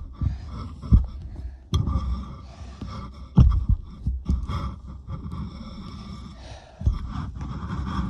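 Hands kneading and pressing a soft foam slime: squishing and handling noise with irregular low thuds, the loudest about three and a half seconds in.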